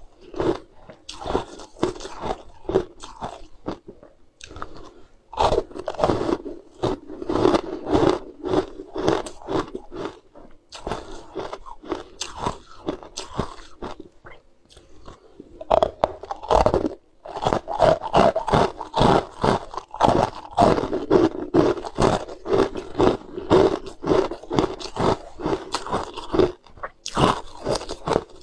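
Someone biting and chewing hard frozen ice balls, with rapid sharp crunches in runs and two short pauses, about four seconds in and about halfway.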